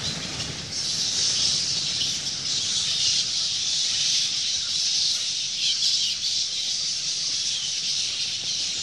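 A dense chorus of many bats squeaking and chittering at once, a steady high-pitched chatter.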